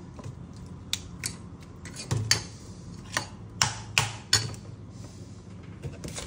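A metal spoon clinking and tapping against a stainless steel bowl, a handful of sharp, irregular clicks, while egg mixture is spooned over a raw pork cutlet.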